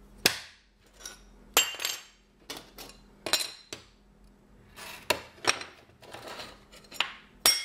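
Glass mirror being scored with a tile-grout scraper and snapped into small triangles: a string of sharp snaps and glassy clinks, with short scratches between them.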